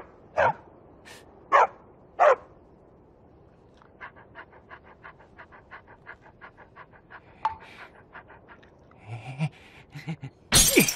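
A dog gives a few short, sharp yips that fall in pitch, then pants quickly and evenly, about four breaths a second, for several seconds. A loud sudden sound cuts in near the end.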